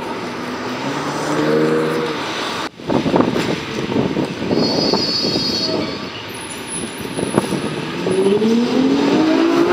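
City street traffic: vehicle engines and tyre noise, with a brief dropout about three seconds in. Near the end an engine note rises steadily in pitch.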